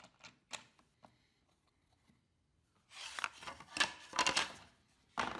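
A few faint clicks, then wood rubbing and knocking for about a second and a half as a plywood piece is handled on a plywood table-saw crosscut sled, with one more short knock near the end.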